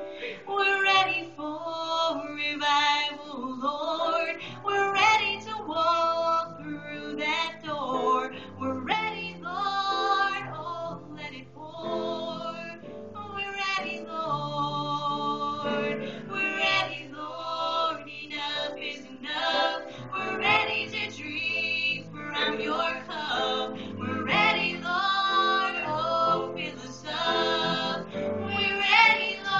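A female voice singing a song over instrumental backing with a steady bass line.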